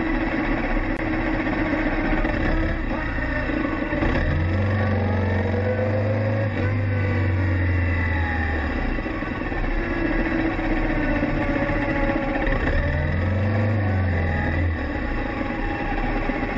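A stream of motorcycles riding past, many engines running together with pitches rising and falling as bikes pass and rev, loudest in stretches as groups go by.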